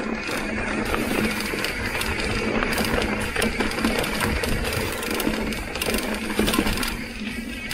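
Mountain bike rolling along a dirt trail: tyres on dirt and dry leaves with frequent small clicks and rattles from the bike, and the rapid ratcheting buzz of an Industry Nine rear hub freewheeling while coasting.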